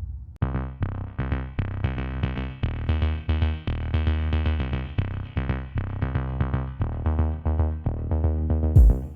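Electronic music: a drum-machine beat with repeated synthesizer notes, starting about half a second in.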